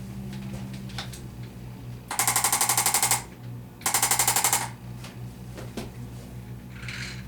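Arthrostim chiropractic adjusting instrument firing two bursts of rapid mechanical taps, about a dozen a second, the first about a second long and the second a little shorter, tapping a bone into place as a chiropractic adjustment.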